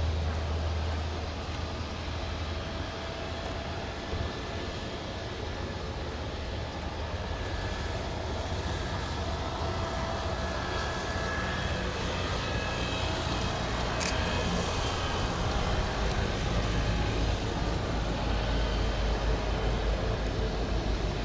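Airbus A321neo jet airliner taxiing, its twin turbofan engines running steadily at low power: a low rumble with a faint whine on top.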